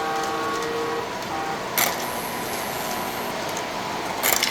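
Operating model train layout running: a steady mechanical hum and rattle of small electric trains, with two sharp clicks, one just under two seconds in and one near the end.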